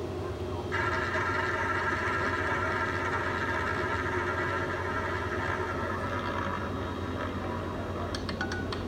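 Roulette betting terminal's spin sound effect through its speaker: a steady rolling whir starting about a second in, then a quick run of clicks near the end as the ball drops into a pocket.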